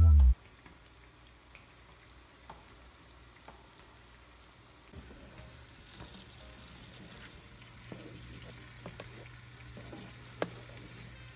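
Pasta boiling in a large pot of water on the stove: a faint bubbling hiss over a steady low hum, with a few light clicks of the stirring utensil against the pot.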